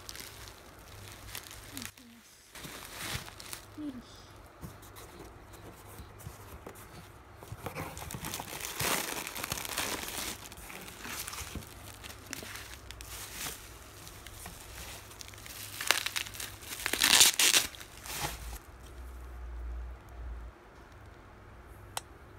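Plastic bubble wrap crinkling and rustling in bursts as items are unwrapped from a cardboard box, loudest about three-quarters of the way through.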